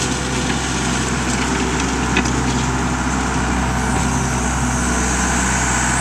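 Case 1840 skid steer's diesel engine running at a steady pitch as the loader works, scooping up a bucket of dirt.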